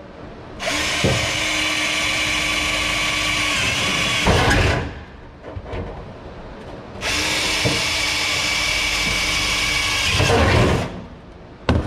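Power drill boring mounting holes through a range hood's housing. There are two steady runs of about four seconds each, with a short pause between them.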